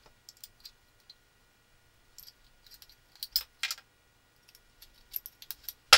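Small hard parts of a paint sprayer's pump clicking and tapping as they are handled during disassembly: scattered sharp clicks, a few together about three and a half seconds in and more near the end, the loudest at the very end.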